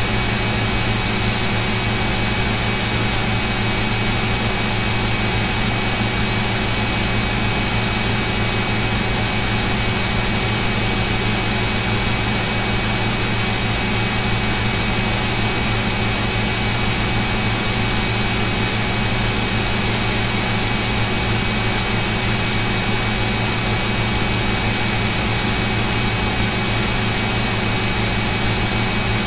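A steady, unchanging whirring hum over a broad hiss, motor- or fan-like, with no rises, falls or breaks.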